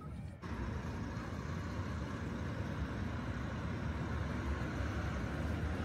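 Steady city street traffic: cars and a truck driving past with a low engine rumble.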